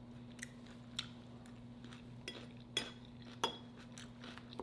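A metal fork clinking against a glass salad bowl while picking at salad: a handful of light, separate clinks over a faint steady low hum.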